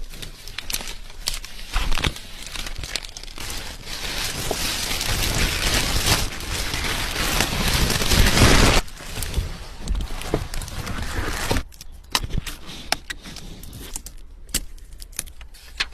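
Packaging crinkling and rustling as it is unwrapped, growing louder until it stops abruptly about nine seconds in. Scattered light clicks and taps follow.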